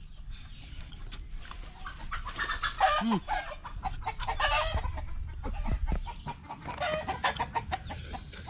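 Chickens clucking in bursts, loudest about two and a half and four and a half seconds in and again around seven seconds.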